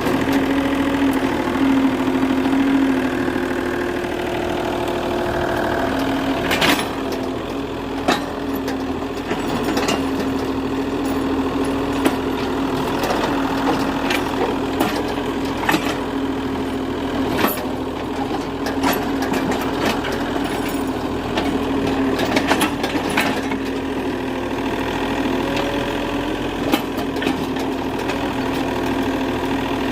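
Excavator engine running steadily, with sharp knocks every second or two from about a quarter of the way in.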